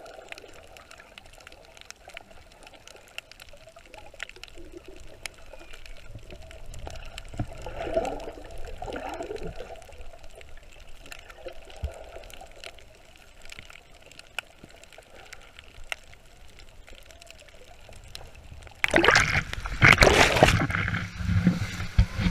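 Muffled underwater ambience heard through a submerged camera, with faint scattered clicks. About nineteen seconds in it gives way to loud splashing and rushing water as the camera comes up in the shallow surf at the shoreline.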